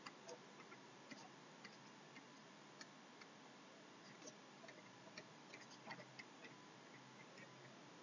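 Near silence with faint, irregular ticks: a stylus tapping on a pen tablet while handwriting.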